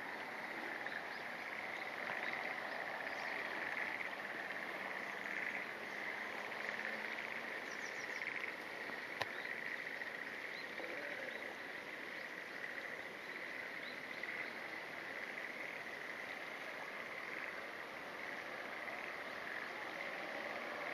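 A steady, high-pitched chorus of calling animals, with a few faint brief higher chirps scattered over it and a single sharp click about nine seconds in.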